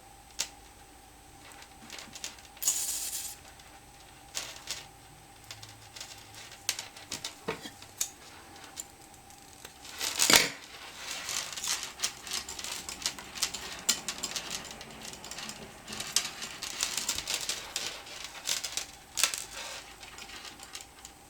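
Hands handling a mobile's strings, beads and driftwood, giving scattered small clicks, taps and rustling. A brief rustle comes about three seconds in and a louder knock about ten seconds in.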